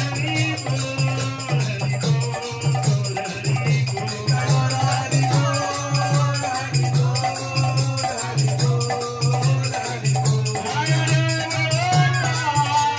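Devotional kirtan music played live: a dholak drum keeps a steady beat under group singing, with rattling hand percussion.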